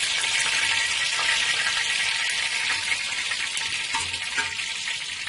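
Chicken pieces frying in hot oil in a steel disco (plow-disc pan): a steady sizzle that eases off slightly toward the end.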